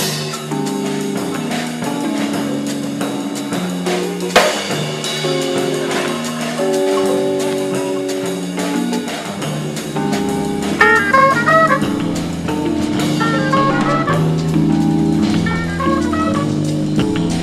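Jazz band music: horns and saxophone holding chords over a drum kit, with a cymbal crash about four seconds in and quick runs of short high notes from about ten seconds on.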